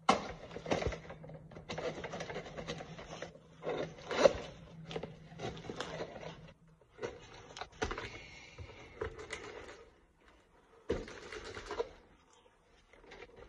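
Kitchen knife scraping and slicing along the packing tape of a cardboard box in irregular strokes, with a few knocks as the box is handled.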